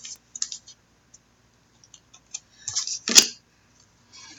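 Scattered light clicks and taps on a desk, like keys or card handling, with a short cluster and one sharper knock about three seconds in.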